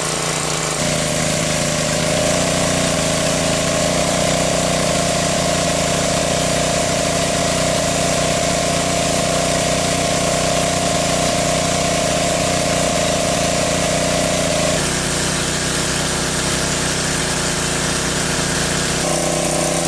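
A small engine running steadily, its pitch shifting abruptly about a second in, again around two-thirds of the way through, and once more near the end.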